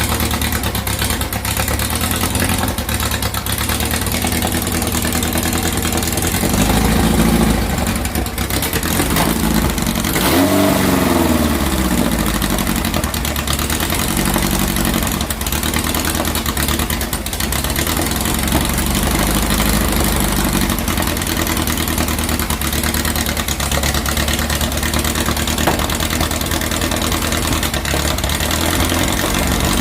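2332cc air-cooled VW flat-four engine running at a steady idle, revved up briefly a couple of times, while its freshly cleaned carburettors' mixture screws are being set.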